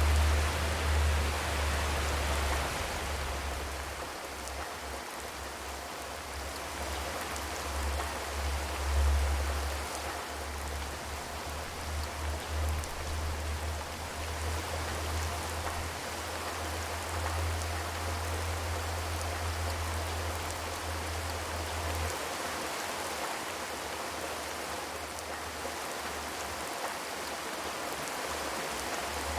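Steady rain drumming on a zinc sheet-metal roof, an even hiss of many drops, with a low rumble underneath that comes and goes and cuts out about three-quarters of the way through.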